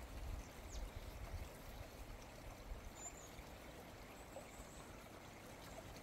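A mountain stream flowing, a faint, steady rush of water.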